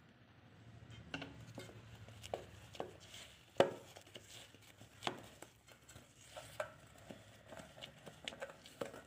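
Silicone spatula stirring thick cake batter in a metal bowl, with irregular soft taps and scrapes against the bowl, the sharpest about three and a half seconds in.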